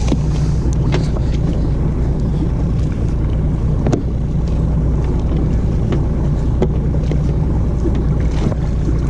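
Evinrude E-TEC 90 hp two-stroke outboard idling steadily, with a few faint knocks as a crab trap line is hauled aboard by hand.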